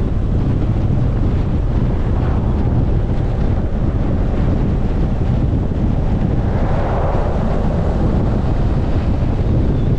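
Wind rushing over the microphone of a camera on a motorcycle riding along the road, a steady low rumble with the bike's running noise mixed in. It swells briefly about seven seconds in.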